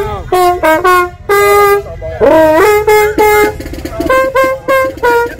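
Marching-band mellophone playing loud, punchy riffs: strings of short notes with a few held ones, a rising slide partway through and a quick run of repeated notes near the end.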